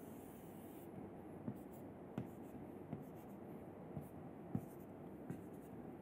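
Chalk drawing lines on a blackboard: faint scratching with several light, sharp taps as the chalk strikes and lifts off the board.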